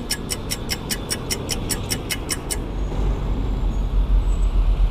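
Road traffic rumbling by, swelling to its loudest near the end, with a rapid even ticking, about five or six ticks a second, through the first half.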